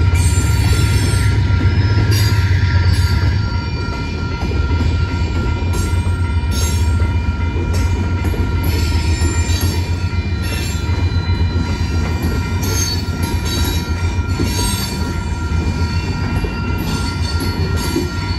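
Freight cars rolling past through a grade crossing: a steady low rumble of wheels on rail, with steady high-pitched wheel squeal and scattered short screeches over it.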